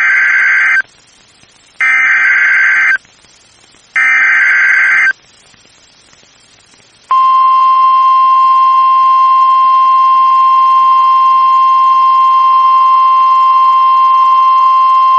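Emergency Alert System SAME header on NOAA Weather Radio: three harsh, buzzing digital data bursts, each about a second long and about two seconds apart. About seven seconds in, the steady 1050 Hz warning alarm tone starts and holds. Together they signal the start of an emergency alert, here a severe thunderstorm warning.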